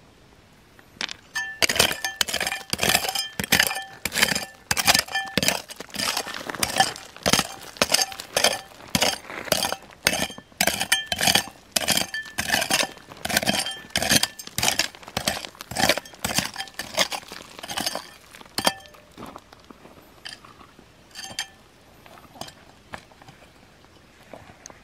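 A metal tool striking rock over and over, about two blows a second, each blow with a clinking metallic ring. The blows stop about three-quarters of the way through, leaving only a few lighter knocks.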